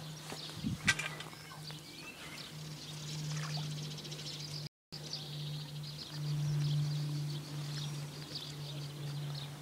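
Outdoor ambience: a steady low hum with faint, high bird-like chirping and a few small clicks. The sound drops out completely for a moment about five seconds in.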